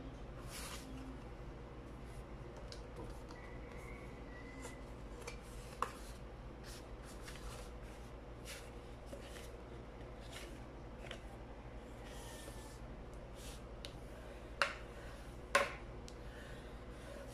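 Sheets of card paper rustling and sliding as they are handled and folded on a cutting mat, in short soft brushes throughout. Two sharp taps about a second apart near the end.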